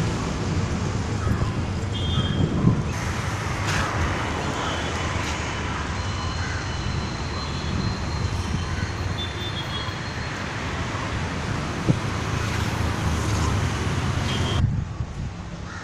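Steady street traffic noise from passing road vehicles, a constant low rumble that drops off noticeably near the end.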